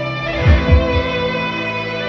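Background music: sustained string tones over a steady low, heartbeat-like drum beat that hits twice in quick succession about halfway in.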